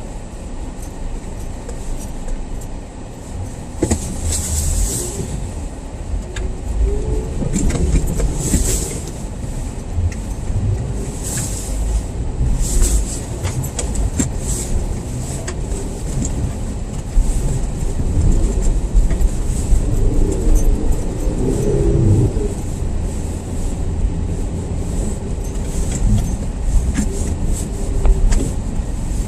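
A car driving, with a steady low rumble and several short hissing swishes.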